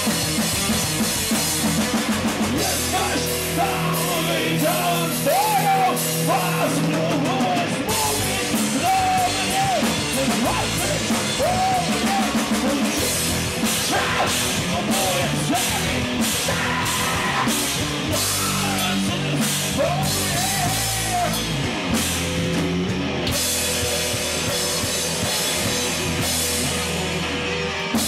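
Live rock band playing: two electric guitars, bass guitar and drum kit at full volume.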